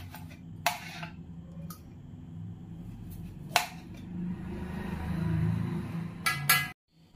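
Kitchen knife cutting steamed, softened lemons on a plate: the blade clicks sharply against the plate about a second in, again around three and a half seconds in, and twice in quick succession near the end. A low, steady hum runs underneath.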